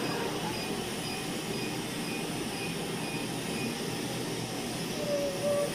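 Steady rushing air noise of a Cynosure Elite hair-removal laser system running during treatment, with faint short high beeps about twice a second.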